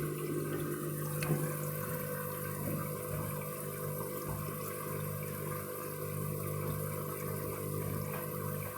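Washing machine running an emergency rinse to clear excess suds after a suds lock: water rushing through the machine over a steady low hum, with a brief knock about a second in.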